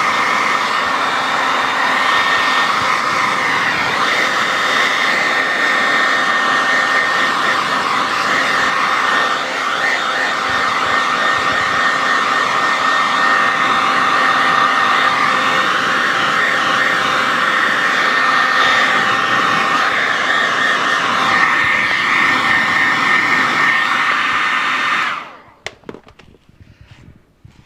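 Handheld hair dryer running: a steady rush of air with a thin steady whine, used to blow crimps out of faux fur. It is switched off about 25 seconds in.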